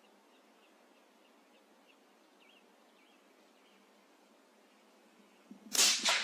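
Faint bird chirps, then near the end one loud, sudden crack: a CZ 457 rifle in .17 HMR firing a shot.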